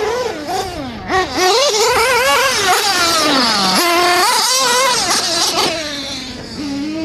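Radio-control off-road cars racing past, their motors revving up and down in quick rising and falling whines, with more than one car heard at once.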